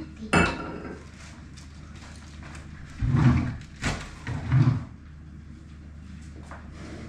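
Kitchen handling noises: a sharp knock about half a second in, then a few heavy thuds and a click as things are set down and moved on the counter, over a steady low hum.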